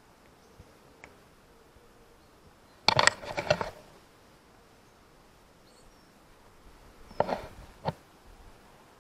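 Two short bursts of quick clicks and rattles, about three seconds in and again near the end, from a motorcycle's clutch lever and its adjuster being handled and worked while the lever's free play is set.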